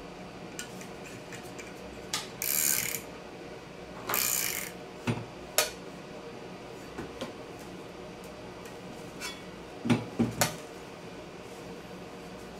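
Hand-handling of the angle grinder saw jig's steel base plate and wooden parts: two short scrapes, then a few sharp metal clicks and knocks.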